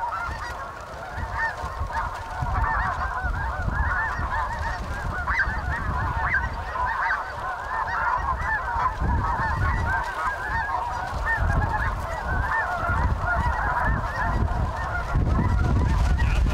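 A large flock of snow geese calling without a break, a dense clamor of many short, overlapping honks, over a low rumble.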